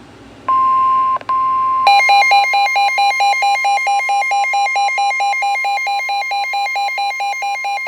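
NOAA Weather Radio warning alarm: a steady 1050 Hz tone, which signals that a warning is about to be read. About two seconds in, a second electronic alarm starts beeping rapidly over it, about four beeps a second.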